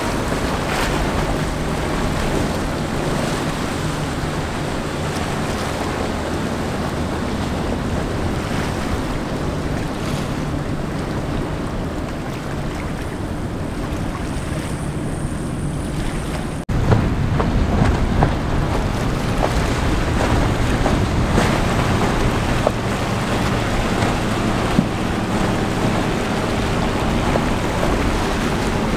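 Twin outboard engines of a passing center-console powerboat running at speed over wash and wind noise on the microphone. After a sudden cut just past halfway, a second boat runs at speed with louder, gustier wind and water noise.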